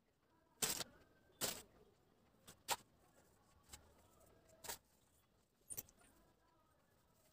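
Faint, short scratchy rustles and light clinks, about five over seven seconds, from a hand pinching and trickling rangoli powder onto the floor to draw a design.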